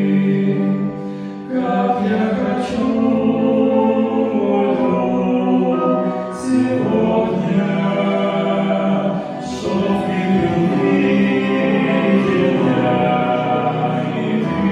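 Several voices singing together in sustained phrases, a Russian Christian song, with short breaks between phrases.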